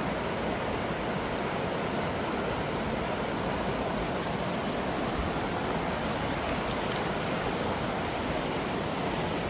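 A waterfall's falling water rushing in a steady, even wash of noise.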